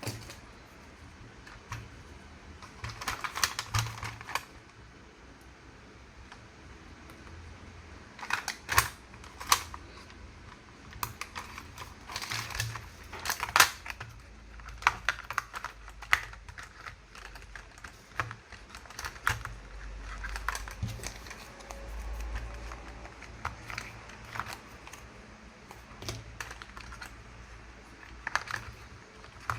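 Hard plastic clicking and tapping as a toy and its packaging are handled, in irregular clusters of sharp clicks.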